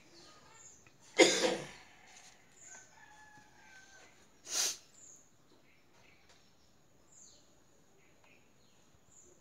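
A rooster crowing: loudest about a second in, then a falling call that trails off over the next couple of seconds. Small birds chirp every second or two, and there is a brief hissing burst about halfway.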